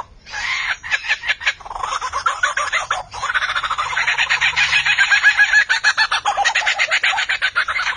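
Lyrebird calling in mimicry: a fast stream of short repeated notes with a brief break about three seconds in, after which the notes come louder and closer together.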